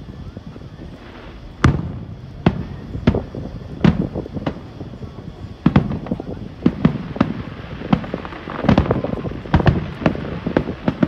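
Aerial fireworks shells bursting as a string of sharp bangs, about one a second at first and quickening to several a second from about halfway.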